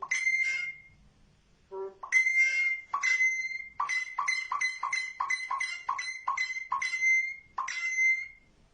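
Pet myna mimicking a mobile phone ringtone: whistled notes at one steady pitch, each starting with a harsh rasp. A long note comes about two seconds in, then a quick run of about ten short notes, then one last long note.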